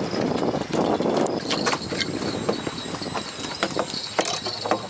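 A freshly landed small fish flapping on the boat's deck, its body slapping the deck in quick, irregular taps.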